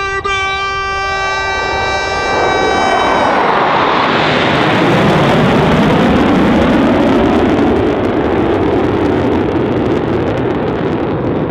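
A steady pitched tone for the first three seconds gives way to the broad jet roar of three F-16 Fighting Falcon fighters flying in formation. The roar builds from about two and a half seconds in, with a slow sweeping, phasing quality, and is loudest near the middle.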